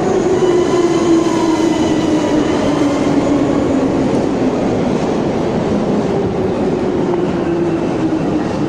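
Novosibirsk Metro train running with a steady loud rumble of wheels on rail, its motor whine sliding down in pitch as it slows.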